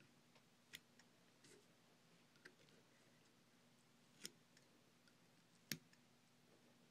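Small fly-tying scissors snipping spun deer hair: about five faint, sharp snips spread over several seconds against near silence, the last one the loudest.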